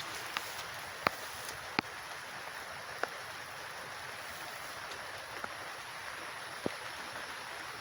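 Steady rain hiss, with about half a dozen sharp, separate drop hits landing close by.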